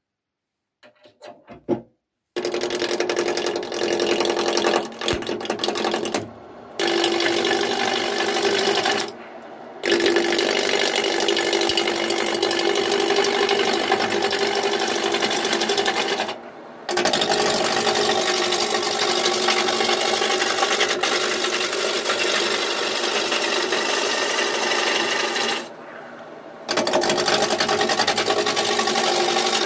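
Wood lathe spinning a fir blank while a turning tool roughs it down toward round: a continuous rough cutting noise over the machine's steady hum. It starts about two seconds in and drops away briefly four times.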